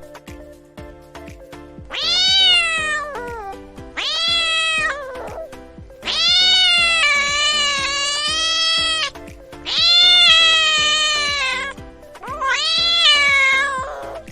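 Persian cat meowing five times. The calls rise and fall in pitch, and the middle one is drawn out for about three seconds.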